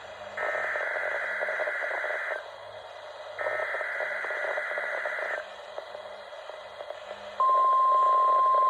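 NOAA Weather Radio weekly test alarm: two short bursts of buzzy, warbling SAME digital header data, each about two seconds long with a second between them. About seven seconds in, the steady, louder single-pitch warning alarm tone begins.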